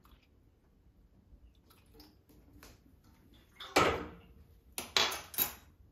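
Metal kitchenware being handled around a stainless steel mixing bowl: faint drips at first, then one loud metal clank about four seconds in, and a quick run of metal clinks about a second later.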